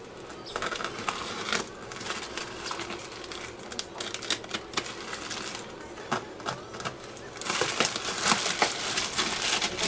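Shipping parcel being unwrapped by hand: packaging crinkling and rustling with irregular clicks and crackles, getting busier about three-quarters of the way in.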